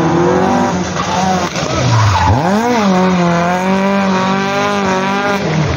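Rally car engine revving hard through a slalom, its pitch dipping about two seconds in, then climbing and holding high before falling near the end as the driver lifts off. Tyres squeal through the turns.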